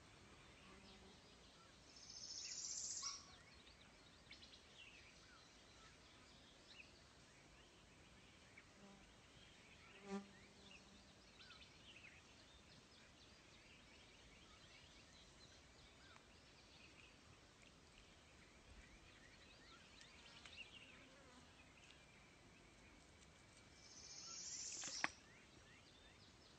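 Quiet outdoor ambience with faint scattered chirps. Twice an insect's high buzz swells up over about a second and then cuts off sharply, and there is a single soft knock about ten seconds in.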